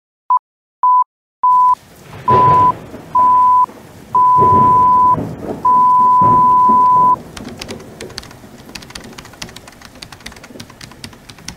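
Intro sound effects: a steady electronic beep sounds seven times, each beep longer than the last, over rain with rolls of thunder. After about seven seconds the beeping stops and a quick run of small clicks and taps follows over the rain.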